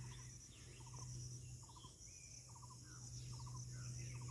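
Outdoor wildlife ambience: a small animal repeats a short rattling call of three or four quick notes a little faster than once a second, over a steady high buzz of insects, with a few thin falling bird whistles.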